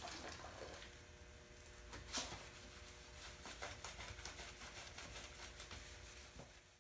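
Faint rubbing and wiping strokes of a soapy hand or cloth along a moped's painted frame, in quick runs, with a sharper scrape about two seconds in, over a low steady hum.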